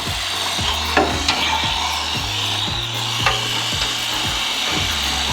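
Battery-powered Lil Turtle toy swimming, its small motor whirring and its flippers paddling in the water in a steady rhythm of about three strokes a second, over a low hum, with a couple of sharper clicks.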